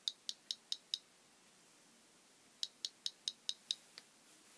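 Velleman MK104 electronic cricket kit chirping through its piezo buzzer, imitating a cricket: a quick run of five short high-pitched chirps, a pause of about a second and a half, then another run of six.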